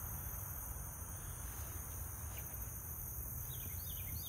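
Steady high-pitched chorus of crickets or similar insects over a low rumble. Near the end a few short, falling chirps come in quick succession.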